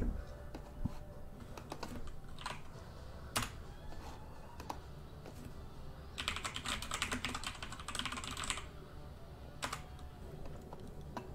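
Computer keyboard typing: scattered single keystrokes, then a quick run of rapid typing lasting a couple of seconds past the middle.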